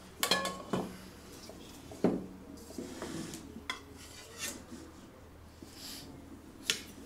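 A serving spoon and pot lid clinking and scraping against a metal cooking pot as food is dished out. It comes as a string of irregular clinks, the first one ringing briefly.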